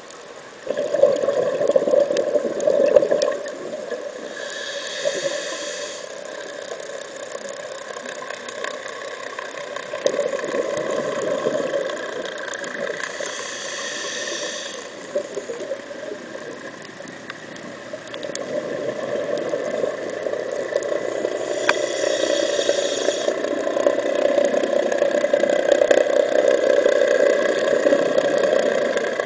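Scuba diver's breathing heard through an underwater camera housing: a hiss from the regulator on each inhale, three times about eight seconds apart, between long spells of exhaled bubbles rumbling up past the camera.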